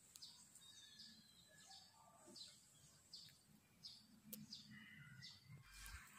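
Near silence with faint bird chirps, short notes falling in pitch and repeated about every two-thirds of a second.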